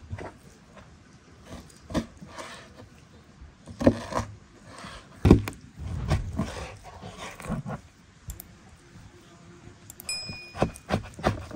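Irregular clinks, clicks and knocks of objects being handled, with a loud thump about five seconds in. A brief high, steady tone sounds near the end.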